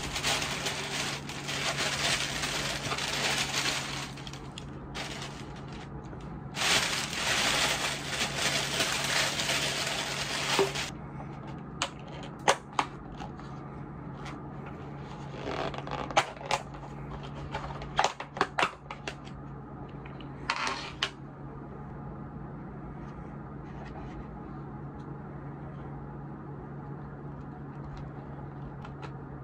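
Plastic rustling in two long stretches, then a series of sharp clicks and snaps as the clear plastic lid is worked off a compartmented takeaway meal tray. A steady low hum runs underneath.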